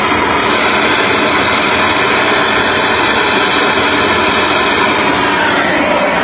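Handheld propane torch burning with a steady, loud hiss while it heats a copper pipe joint to melt the solder.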